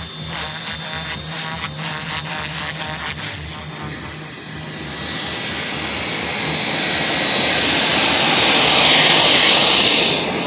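An RC model helicopter's rotor hum for the first few seconds. Then an RC model jet's engine: a rushing hiss with a high steady whine, swelling from about five seconds in to its loudest near the end, then dropping off sharply.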